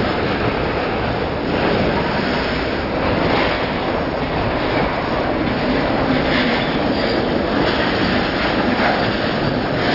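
Freight train of loaded centerbeam flatcars rolling past close by: a steady, loud noise of steel wheels running on the rails.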